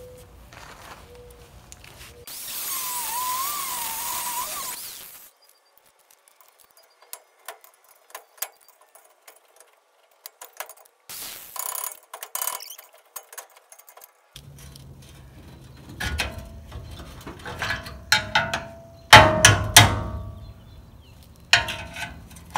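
Hand tools clinking and ratcheting against the rusty bolts of a VW bus bumper mount, in bursts of clanks and clicks with short metallic rings. Near the start there is also about three seconds of a loud hiss with a wavering tone, and between the bursts it goes nearly quiet.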